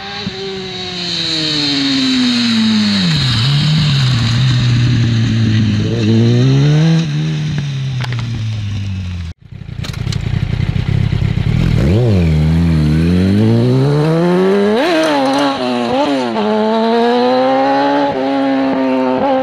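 Yamaha inline-four sport bike engines. In the first half a bike runs past: its pitch falls and settles at a steady low note, then climbs again. After a sudden cut, a bike close by is revved in several quick blips and then pulls away.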